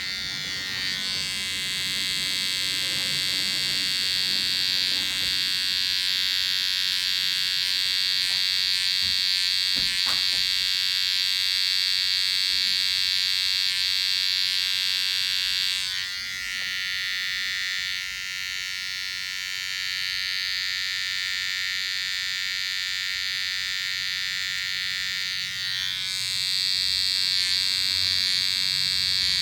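Gamma+ Absolute Hitter cordless hair trimmer running with a steady high-pitched buzz while it cuts hair. Just past halfway the buzz turns duller for about ten seconds, then comes back full near the end.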